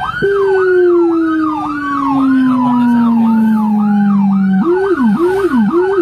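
Whelen SDA1 dual-tone electronic siren sounding a fast rising-and-falling yelp, with a Feniex Hammer low-frequency siren added underneath. The low tone cuts in just after the start and glides slowly downward. About four and a half seconds in, it switches to a low yelp that moves in step with the high one.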